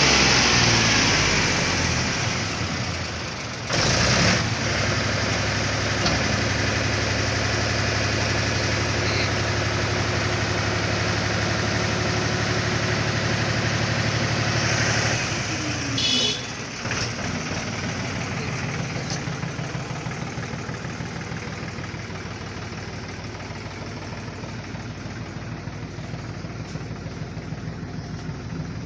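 Mahindra B275 DI tractor's diesel engine idling steadily, with two brief noisy bumps about four and sixteen seconds in. After the second it is a little quieter, with an even diesel clatter.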